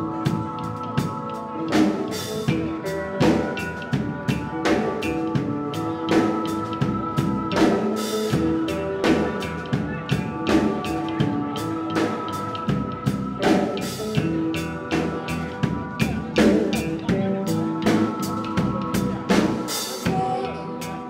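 Band music driven by a drum kit: snare, bass drum and cymbal strokes in a steady beat under held notes from other instruments.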